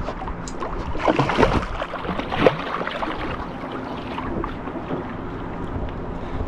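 Wind buffeting the microphone and water lapping against a bass boat's hull, with a few louder rushes of noise about one to two and a half seconds in.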